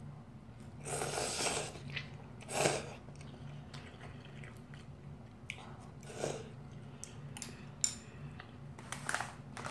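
A boy slurping instant noodles in soup, about four slurping draws with the loudest about two and a half seconds in, and quieter chewing between. A light click near the end as chopsticks are set down on the table.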